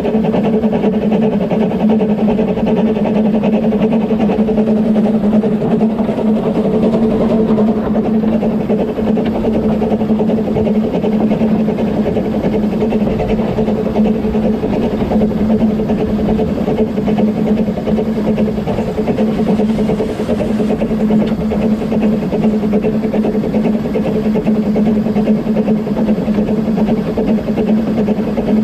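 Dolgoch, the Talyllyn Railway's narrow-gauge 0-4-0 well-tank steam locomotive, running with its train, heard from aboard: a steady mechanical rumble with a low hum under it, even throughout.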